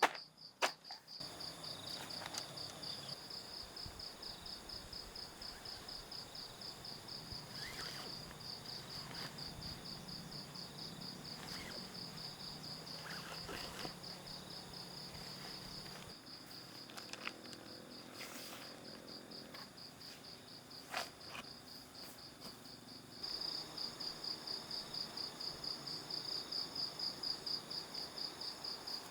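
Night insects chirping in a steady, rapid pulsed trill at one high pitch, growing louder in the last few seconds. A few faint clicks and knocks sound over it.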